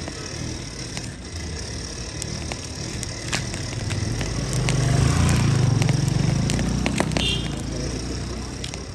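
Street traffic with a motor vehicle passing, its low rumble swelling to a peak about midway and fading, under scattered crisp snaps and rustles of fresh corn husks being torn off the cobs by hand.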